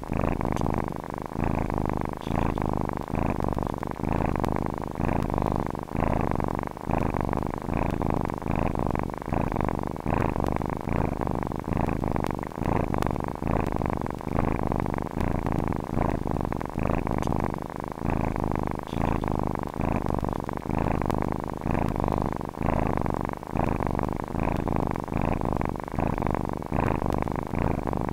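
Domestic cat purring steadily and close up, a low buzz that swells and dips about once a second with its breathing in and out.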